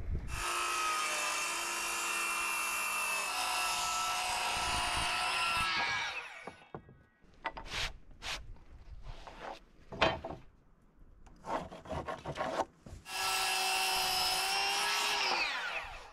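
Handheld circular saw crosscutting a thick, rough-milled wooden board twice. Each cut is a steady whine that winds down in pitch when the trigger is let go: the first lasts about six seconds, the second about three near the end. Between the cuts come scattered knocks of the board and saw being handled.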